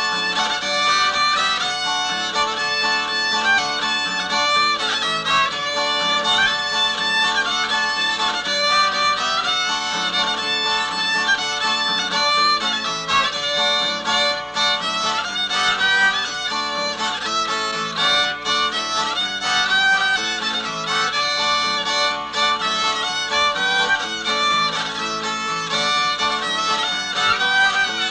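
Background music: a fiddle tune played in quick notes.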